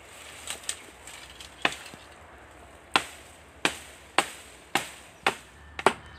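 A hand-swung blade chopping into a tree's branch, sharp woody strikes. A few come scattered at first, then from about three seconds in they fall steadily at nearly two a second.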